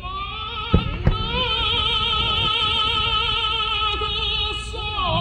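Operatic singing with orchestral backing: a singer holds one long note with a wide vibrato, the pitch dropping near the end. Two sharp firework bangs cut through about a second in.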